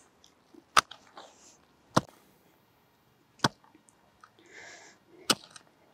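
Garden hoe chopping into soil to dig a planting hole: four sharp strikes about every second and a half, with faint scraping of soil between them.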